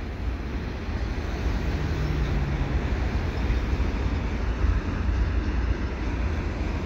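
Freight train's double-stack container well cars rolling past, a steady rumble of steel wheels on rail.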